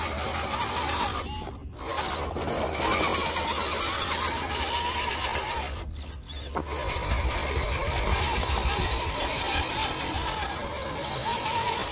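1/10-scale RC crawler's electric motor and gear drivetrain whining as it crawls over rocks and dirt, the whine wavering in pitch with the throttle and dropping away briefly twice.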